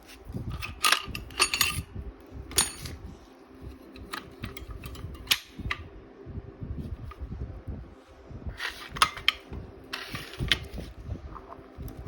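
Homemade air gun: a series of sharp, irregularly spaced clicks and pops, some followed by a short hissy burst.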